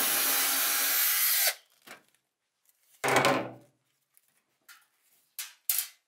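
Cordless drill/driver running for about a second and a half, backing out a screw that holds a clothes dryer's front panel, then running again briefly about three seconds in for the second screw. A few light clicks follow near the end.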